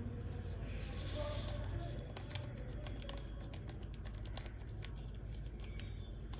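A small paper sugar sachet being torn and crinkled in the fingers as the sugar is tipped into a mug: a soft rustle, then a run of small crackling clicks, over a low steady hum.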